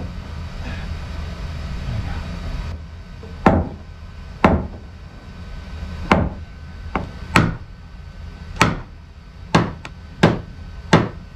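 Hammer blows on framing lumber, about nine sharp strikes at uneven intervals, knocking a new sister joist into place flush against the old floor joist.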